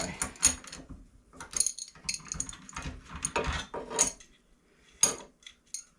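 Metal hand tools and hardware handled on a workbench: irregular clinks, knocks and clatter of metal on metal, the sharpest about four and five seconds in.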